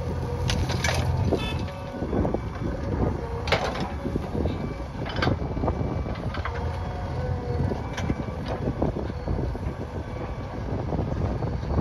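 Backhoe loader's diesel engine running steadily under work, with scattered metallic clanks and knocks.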